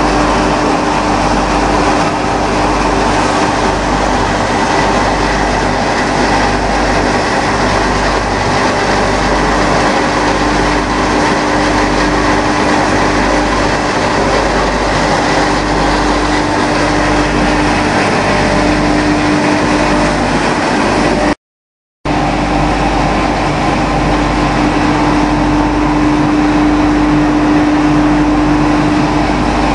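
Straw pellet production line machinery running steadily: a hammer mill with its electric motor and a belt conveyor, making a loud, even noise with a constant hum. The sound cuts out completely for about half a second, about two-thirds of the way through.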